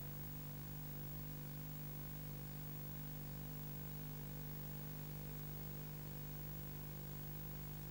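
Steady electrical hum with a constant hiss and no other sound: the empty soundtrack of a silent 8mm film transfer.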